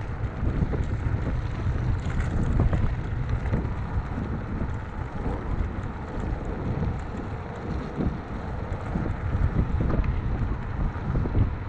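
Wind buffeting the microphone of a camera on a moving electric scooter, with a steady low rumble from riding over the road.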